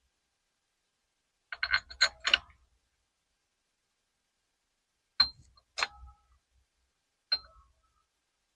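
Sharp metallic clicks and clinks of bolts and hand tools against the metal handlebar riser parts: a quick cluster of four about a second and a half in, then three single clinks a little apart, some ringing briefly.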